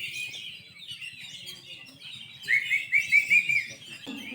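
Several oriental magpie-robins (kacer) singing at once in a dense chatter of chirps and whistles. About two and a half seconds in, one bird gives a loud run of about six quickly repeated notes.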